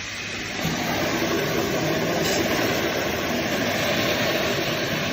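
Deer corn vending machine dispensing: shelled corn rushing down the metal chute into a bag, a steady rush that starts about half a second in.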